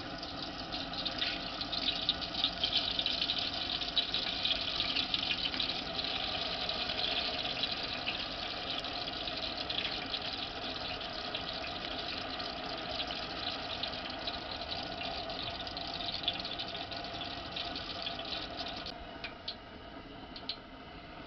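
Cooking oil poured in a thick, steady stream into a large aluminium pot, splashing as it fills; the pour thins out near the end.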